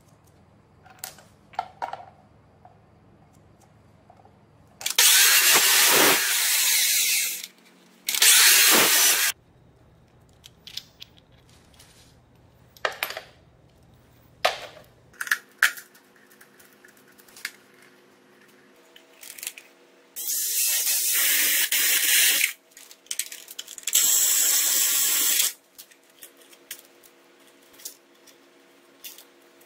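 Cordless power tool run in four short bursts of one to two and a half seconds, with small metal clicks and clinks of parts being handled between them.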